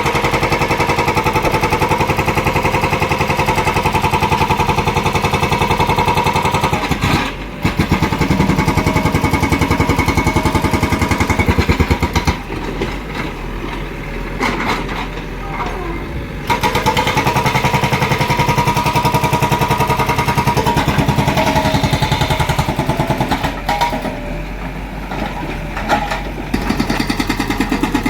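JCB 3DX backhoe loader's diesel engine running hard while it works, easing off briefly about seven seconds in, then for a few seconds near the middle and again toward the end before picking back up.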